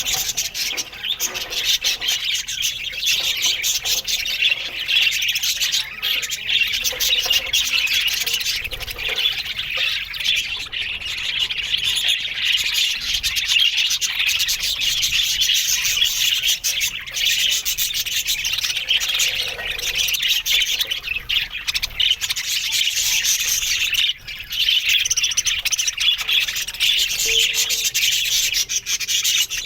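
A flock of budgerigars chattering and chirping all at once, a dense, unbroken twitter with no pauses.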